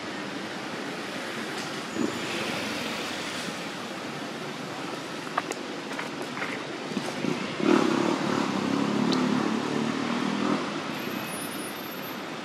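Steady outdoor background noise, swelling louder for about three seconds past the middle, with a few sharp clicks just before the swell.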